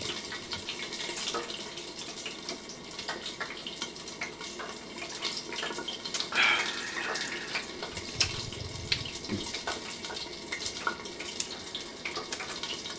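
Hot oil in a deep fryer bubbling and crackling, a dense patter of small pops, with a brief louder hiss about six and a half seconds in.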